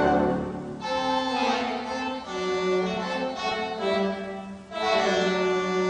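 Background music: a slow passage of held notes with bowed strings to the fore.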